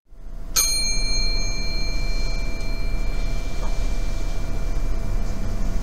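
A single bell-like ding struck about half a second in, its high ringing tone fading over several seconds, over a steady low electrical hum.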